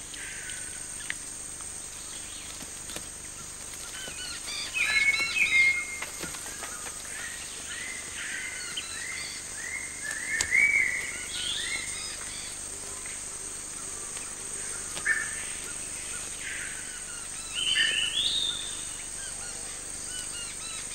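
Wild animal calls in the forest canopy: short, high calls, each falling a little in pitch, come in four bouts of several calls every few seconds. A steady high hiss runs underneath.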